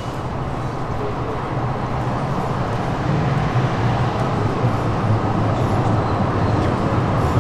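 Calgary CTrain light-rail train pulling into a street-level station platform: a steady rumble of motors and wheels on rail, with a low hum that grows stronger about three seconds in as it draws close.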